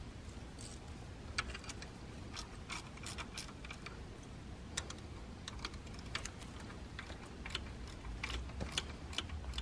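Light metallic clicks and clinks of a hand tool turning the hub sprocket bolts on a BMW S54 engine's VANOS unit. The clicks come irregularly and grow busier near the end.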